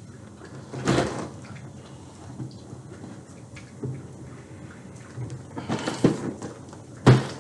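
Cardboard snack box being handled on a table: a scrape about a second in, a cluster of scrapes and rustles around six seconds in, and a sharp thump near the end, the loudest sound.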